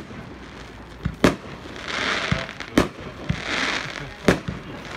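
Fyrverkerimästarna 'Yes Box' compound consumer firework cake firing shot after shot: a sharp bang about every one and a half seconds, each followed by a crackling hiss as the shot bursts.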